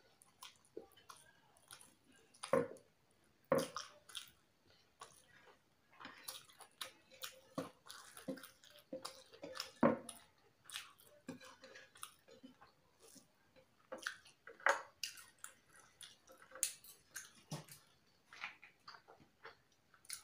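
Close-miked eating of chicken biryani by hand: wet chewing and lip smacks, with fingers mixing rice on the plate, making a steady run of short clicks and smacks, a few of them louder.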